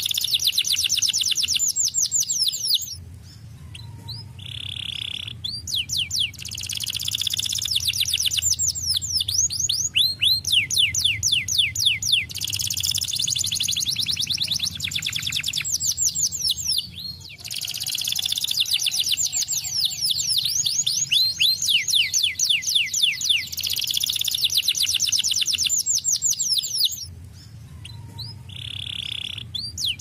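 Domestic canary singing: long runs of fast, rapidly repeated trill notes. The song breaks off briefly about three seconds in and again near the end, each time with a single short held whistle before the trills resume.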